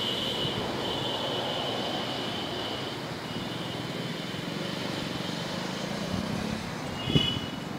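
Steady drone of a distant aircraft slowly fading away, with a high whine in it, over the noise of passing road traffic. A short high-pitched sound comes about seven seconds in.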